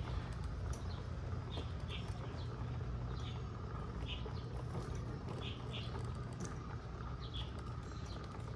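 Small birds chirping: short, high chirps, often in pairs, repeating every second or so over a steady low rumble.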